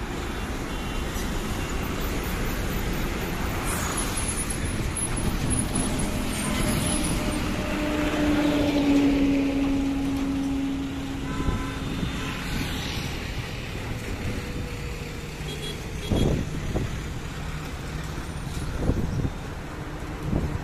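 Highway traffic: lorry and car engines and tyre noise running steadily, with a long low tone around the middle and a few sharp knocks near the end.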